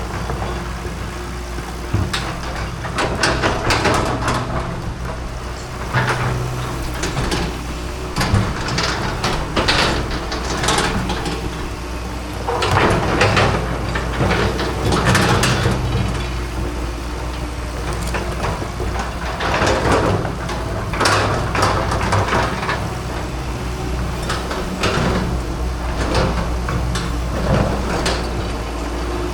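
Excavator engine running steadily under repeated scraping and crunching as the bucket works against broken cement and rubble, each scrape lasting about a second.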